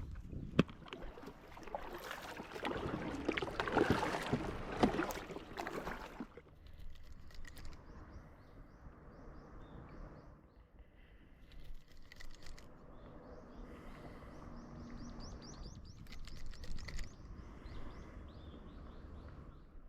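Small birds chirping in short, quick falling notes, repeated in runs over a low steady background. The first several seconds are louder, with rustling and knocking noise.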